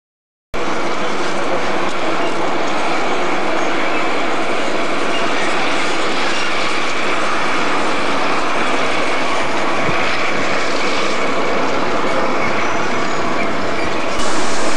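Class 55 Deltic diesel locomotive's twin Napier Deltic two-stroke engines running, a loud steady engine noise that starts abruptly about half a second in and steps louder near the end.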